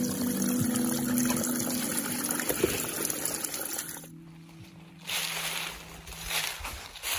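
A small spring trickling and splattering out of a rock spout, running at first into a soft collapsible water bag as it is filled. The level drops briefly about four seconds in.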